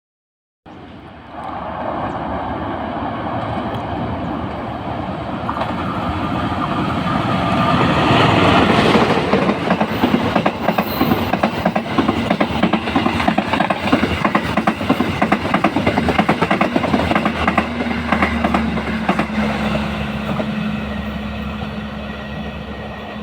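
Passing Indonesian diesel-hauled train: the rumble builds to its loudest about eight seconds in, then the wagon wheels click-clack steadily over the rail joints. Near the end the rhythm fades and a steady low engine hum remains.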